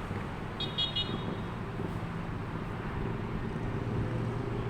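Road traffic: a steady vehicle engine hum, with a short high-pitched chirp about half a second in.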